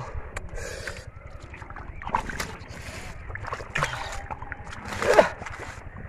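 Hands splashing and sloshing through shallow muddy water and soft mud in irregular bursts, loudest about five seconds in.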